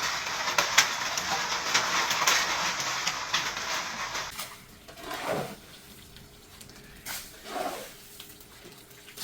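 Heavy storm rain pelting a hard surface, a dense hiss full of sharp ticks. About four seconds in it cuts off to a much quieter stretch with two short calls that fall in pitch.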